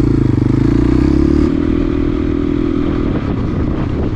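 Motorcycle engine running steadily, then easing off about a second and a half in, its tone dropping and turning rougher.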